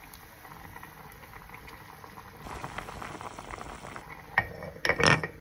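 Spicy stew bubbling at a boil in a black earthenware pot on a gas burner, getting busier about halfway through. Near the end there are a couple of sharp clinks and clatters of a utensil or pot.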